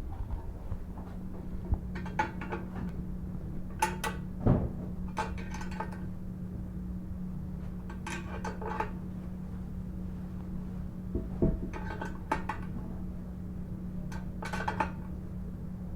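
Metal wrench clinking on the toilet's tank-to-bowl bolt nuts: short clusters of sharp clicks a few seconds apart as the nuts are tightened a little at a time, alternating sides.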